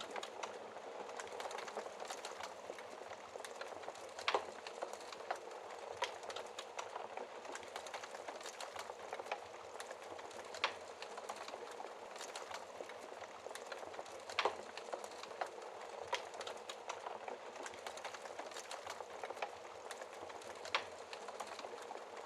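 Wood fire crackling in a fireplace: a steady hiss with many small snaps and a few louder pops.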